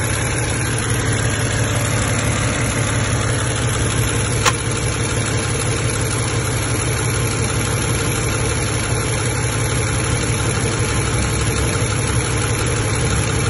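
Car engine idling steadily, heard up close in the engine bay, with one sharp click about four and a half seconds in.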